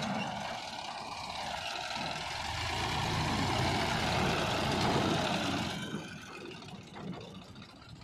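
Sonalika DI 35 tractor's diesel engine running as the tractor pulls a loaded trolley past, loudest in the middle and fading after about six seconds as it moves away.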